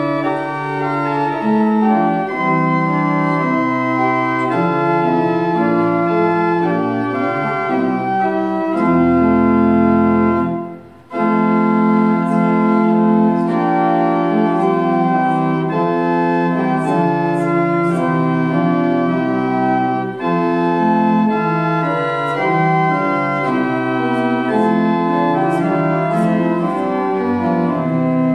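Church organ playing a slow hymn in sustained chords, with one short break between phrases about eleven seconds in.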